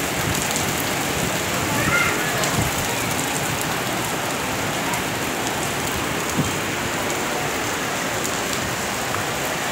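Light rain falling steadily, an even hiss.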